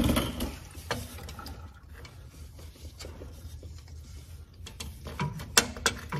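Scattered metal clicks and knocks from large channel-lock pliers gripping and working a very tight spin-on oil filter, with a quiet stretch in the middle and a quick cluster of sharper knocks near the end.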